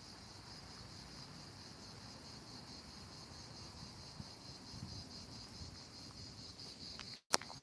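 Insects chirring steadily in a high band, with a faint low rumble underneath. Near the end there is a single sharp click, and the sound briefly cuts out.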